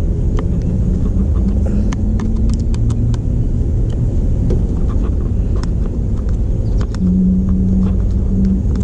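Steady low rumble with scattered light clicks and ticks of small hand tools working the tiny bolts out of a steering wheel's control switches, and a low hum coming in twice.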